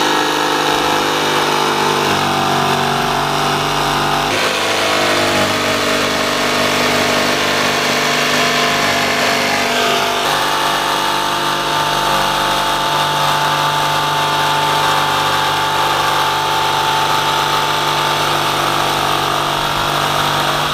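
DeWalt corded jigsaw running steadily as its blade cuts through the steel sheet-metal roof of a VW Kombi, the motor's pitch shifting slightly about four and ten seconds in.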